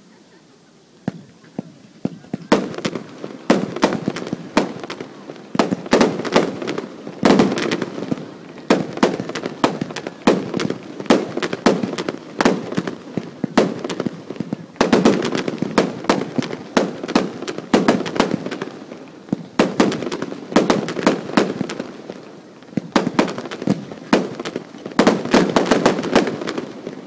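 Set-piece fireworks going off in dense volleys of sharp cracks and bangs, many a second, swelling and easing in waves. It starts about a second in with a few scattered cracks.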